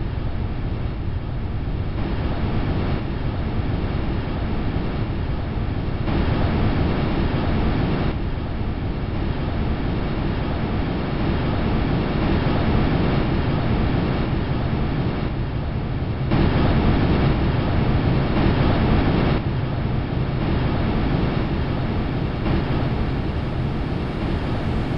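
Rushing wind noise recorded by the Huygens probe's microphone as it descended through Titan's atmosphere: a steady, dense rushing noise with no treble, stepping abruptly louder or softer every few seconds.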